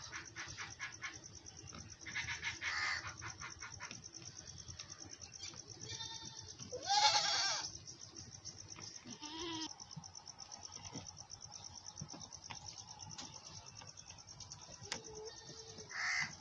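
Goat bleating: one loud drawn-out bleat about seven seconds in and a shorter, lower bleat a couple of seconds later, with faint scattered clicks in between.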